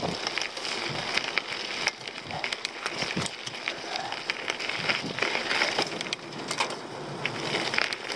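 Mountain bike riding fast downhill on a dirt forest trail: tyres crunching over soil, roots and loose debris, with frequent clicks and rattles from the bike over the bumps.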